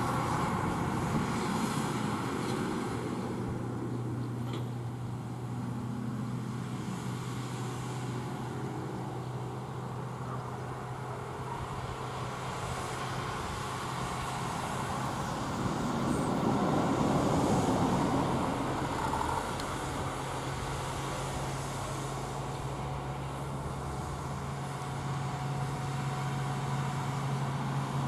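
Case IH Quadtrac 620's six-cylinder diesel engine running steadily under load with a steady low hum, as the tracked tractor pulls a Horsch Tiger disc cultivator through the stubble. It grows louder about two-thirds of the way through as the rig passes closest.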